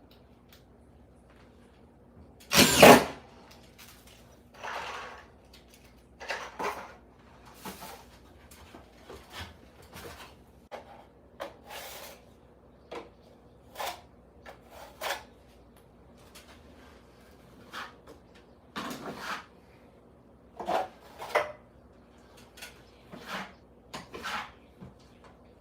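Irregular knocks, scrapes and handling noises of tools and materials being worked in a small room, the loudest a sharp knock about three seconds in.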